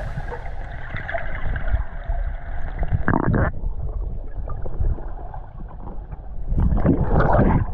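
Muffled water sloshing and gurgling, as heard with the microphone at or under the water's surface, with a louder gush about three seconds in and a longer one near the end.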